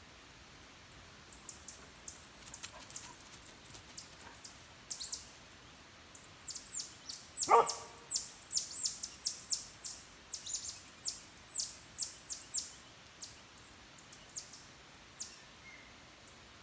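Geoffroy's tamarins calling: a run of short, very high-pitched descending chirps repeated irregularly. About halfway through a single short, lower bark is the loudest sound.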